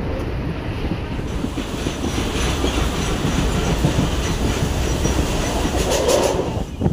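Local passenger train running along the track, heard from inside a coach by an open window: a steady noise of wheels and running gear, with a cluster of sharp clicks about six seconds in.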